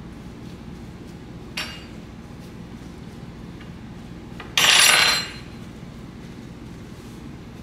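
Paper towel rustling and crinkling as it is pulled open and lifted off cooked chicken on a wooden cutting board: a brief rustle about a second and a half in and a louder, half-second crinkle near the middle, over a steady low hum.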